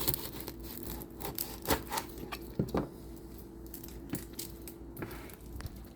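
Scattered light clicks and knocks with some rubbing, from hands handling grilled vegetables and kitchen things, over a steady low hum; a few louder knocks come near the middle.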